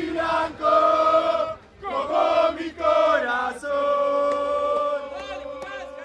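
Group of football fans chanting a terrace song together, in short sung phrases, then holding one long note through the second half.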